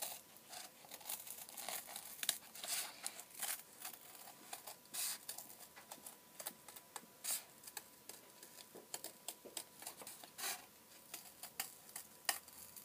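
Scissors cutting through cardboard: a string of irregular snips and crunches as a round wheel is cut out.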